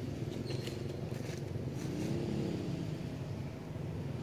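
A steady low engine hum from a motor vehicle running, with a short pitch glide that rises and falls about two seconds in.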